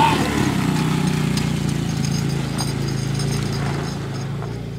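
Small youth four-wheeler's engine running steadily as it carries the children along, gradually fading as it moves away.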